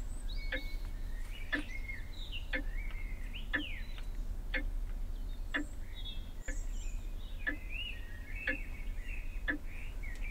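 Birds chirping, with a sharp tick about once a second and a steady low hum underneath.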